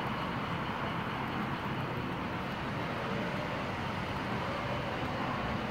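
Model railroad freight cars rolling past on the track, a steady rumble of wheels on rail.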